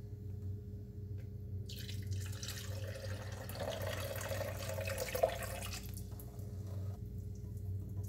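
Water poured into a vintage coffee maker for about four seconds, splashing, then fainter as it runs out through the leaking base in a thin stream into a stainless steel sink: the coffee maker does not hold water. A low steady hum lies underneath.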